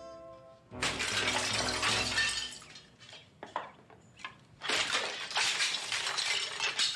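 Glass shattering in two loud crashes, the first about a second in and the second just past the middle, with a few small clinks of falling pieces between them.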